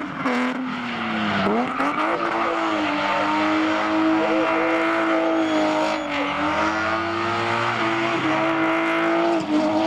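BMW E36 drift car's engine held at high revs while the car slides with its rear tyres spinning, over a steady hiss of tyre noise. The engine pitch dips briefly and climbs back about a second in, again around six seconds and near the end.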